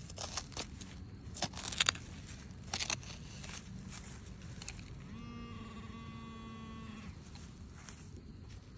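A digging trowel scrapes and clicks through soil and roots for the first few seconds. Then, about five seconds in, a metal detector gives a steady buzzing tone for about two seconds, signalling metal in the hole.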